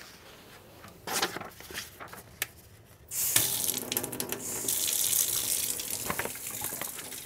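Lab sink faucet turned on by hand. A couple of short knocks come in the first seconds, and about three seconds in the water suddenly starts running and splashes steadily into the stainless-steel basin.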